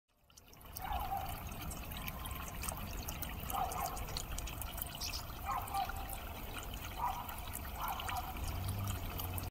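Water bubbling up from the tops of black sphere fountains and trickling down over them onto pebbles, a steady splashing wash that fades in over the first second.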